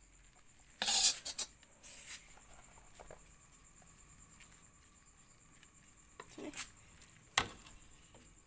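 A metal spatula scraping and clinking in a metal wok as chili paste is stirred into a chopped filling: a few short scrapes about a second and two seconds in and again around six seconds, with quiet between, and a sharp click about seven and a half seconds in.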